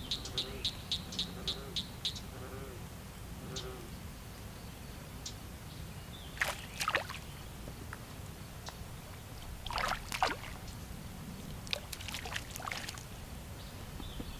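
A hooked small fish splashing at the pond surface as it is reeled in: three short bouts of splashing around the middle and near the end. Rapid ticking, about five a second, fades out in the first two seconds.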